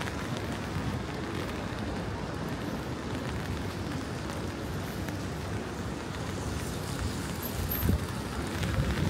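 Wind buffeting the microphone in a fluctuating low rumble, over the steady hiss of rain on a wet city street.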